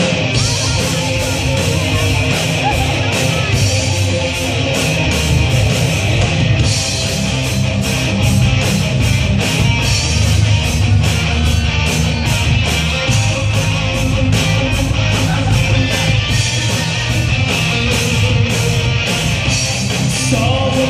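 Live rock band playing: distorted electric guitars, bass guitar and a drum kit, with the drums and cymbals striking in a steady beat.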